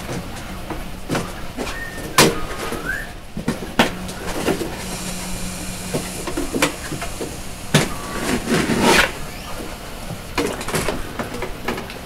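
Foam packing block being worked out of an Anycubic Photon resin printer's enclosure: rustling and scraping of foam against the plastic housing, several sharp knocks, and a short rising squeak two to three seconds in.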